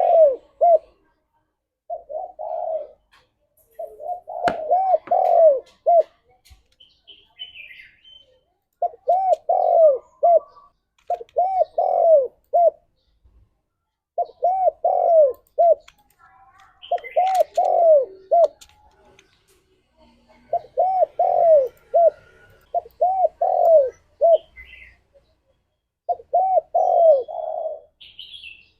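Spotted dove cooing: short phrases of several arched coos, repeated every couple of seconds with brief pauses between them. Faint higher chirps come in between the phrases.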